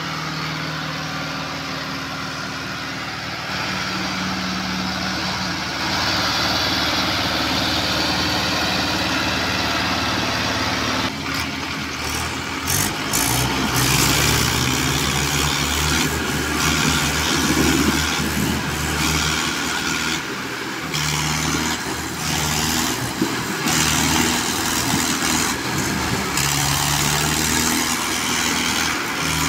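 Mahindra tractor diesel engines working hard under load as one tractor tows a stuck tractor out by chain. The engine note rises in steps over the first several seconds, then turns uneven, rising and falling, from about eleven seconds in.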